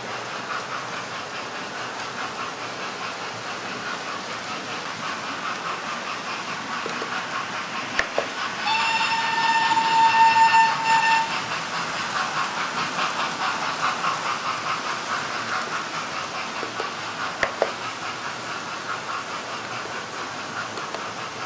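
Several model trains running around a model railway layout: a steady whirring clatter of small motors and wheels on the track. A whistle sounds once for about two and a half seconds, a little over a third of the way in, and there are a couple of sharp clicks.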